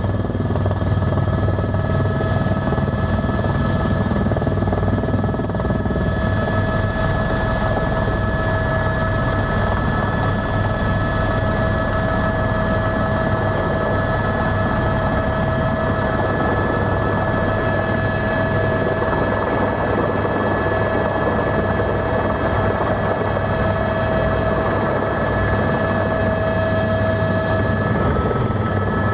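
Helicopter engine and rotor running steadily as it comes in to land and touches down, heard from inside the cabin: a constant drone with a high whine on top.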